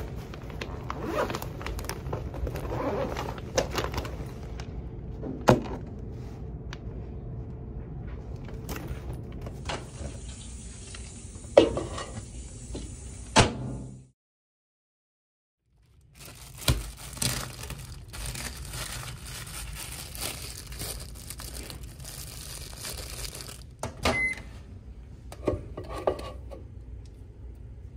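Lunch being handled and heated in a microwave oven: scattered clicks and knocks of a bag and plastic container, then the microwave's steady hum while it runs. A short beep sounds near the end, followed by more clicks and knocks as the door is opened and the container is reached for.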